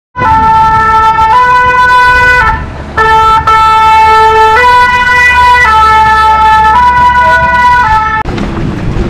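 Two-tone emergency vehicle siren of the French 'pin-pon' kind, alternating loudly between two notes about once a second. It starts abruptly, breaks off briefly about two and a half seconds in, and stops suddenly about eight seconds in.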